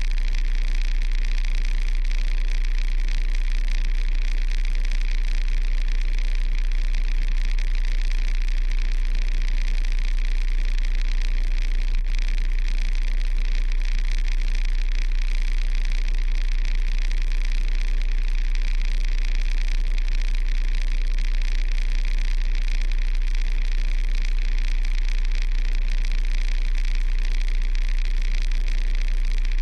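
Kenworth truck's diesel engine idling, a steady unchanging drone, heard through a camera mounted on the outside of the cab.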